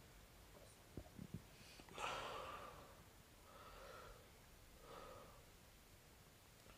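Near silence: room tone with a few faint knocks about a second in, then a short breathy sound from a person about two seconds in and two softer breaths after it.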